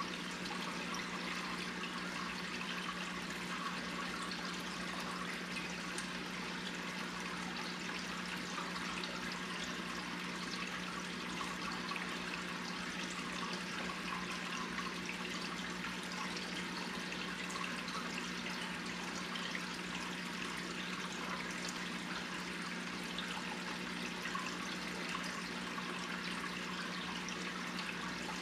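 Aquarium water trickling and bubbling steadily, over a steady low hum from the tank's filter pump.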